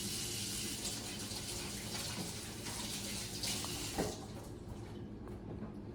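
Kitchen tap running into a sink while hands are washed, then shut off about four seconds in with a short knock.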